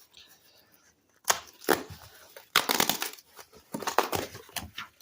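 Paper shipping mailer being torn open by hand: a run of sharp, irregular tearing and crackling noises, the loudest at about one and a half and three seconds in.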